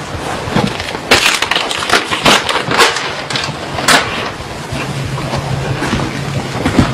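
A sheet of paper rustling and crinkling as it is handed over and opened, with several sharp crinkles in the first four seconds, over a steady hiss.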